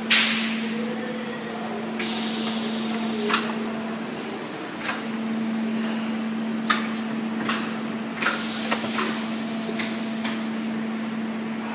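High-frequency PVC welding machines at work: a steady low hum with long bursts of air hiss, one briefly at the start, one from about 2 to 5 seconds in and one from about 8 to 11 seconds in. About five sharp knocks and clacks from the machine's press and sliding tray are scattered through.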